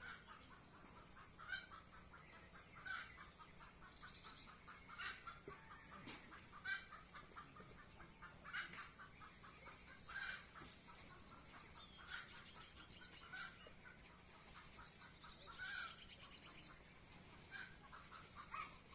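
Chickens clucking faintly, a short call every second or two, over a faint steady high hiss.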